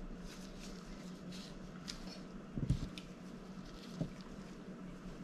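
Faint rustling as gloved hands handle a ribbon bow and a cakesickle, with a soft thud about halfway through as one is set down on the mat, and a light tap near the end.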